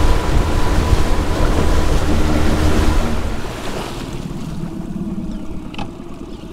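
Small skiff's outboard motor running with the boat on plane, with wind and rushing water. About three seconds in, the engine is throttled back and the noise drops to a quieter steady running as the boat comes off plane.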